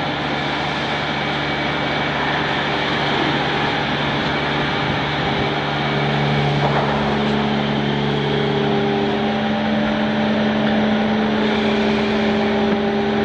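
A solid surface vacuum thermoforming machine running steadily, a hum with a few steady tones over a noisy whir, as its vacuum draws the heated sheet down over the mould.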